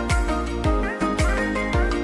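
Background music with a steady beat: a deep kick drum about twice a second under held instrumental notes.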